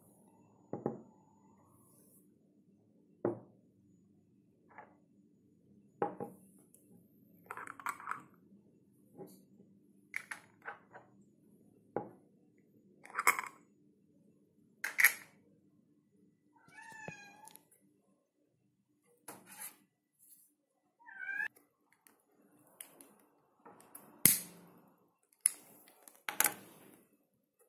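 Glass candle jars set down one after another on a glass tabletop: a string of separate clinks and knocks, the loudest two near the end. A cat meows twice in between, once about two-thirds of the way in and again a few seconds later.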